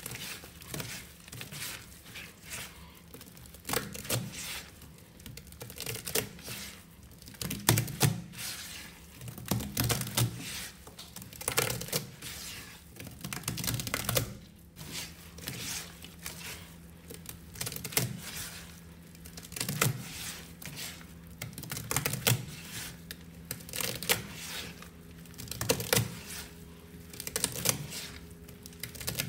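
Sponge squeezed and scrubbed through a thick, damp powder paste in a stainless steel sink by rubber-gloved hands: repeated gritty, crackling squishes, roughly one every one to two seconds.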